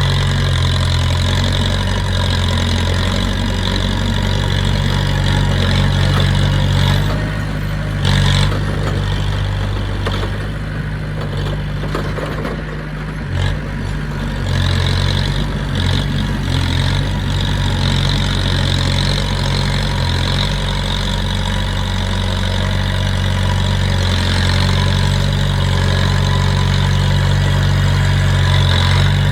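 Diesel engine of heavy earthmoving machinery running steadily, with a high steady whine over it. The engine note drops and wavers for several seconds in the middle, then comes back up to speed. There is a single short knock about eight seconds in.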